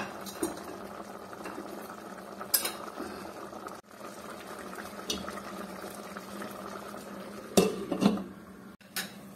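Rice and water boiling in a large metal cooking pot, a steady bubbling hiss with a few light clinks. About seven and a half seconds in there is a louder clatter as the lid is put on the pot.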